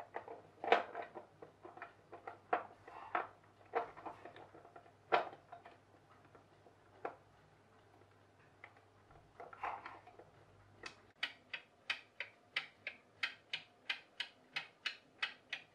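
Irregular clicks and knocks of hard plastic clock-kit parts being handled and fitted, then, about eleven seconds in, the kit clock's plastic escapement starts ticking steadily, about three ticks a second, as the pendulum swings. The timing mechanism runs, but with the black gear fitted backwards it is not driving the hands.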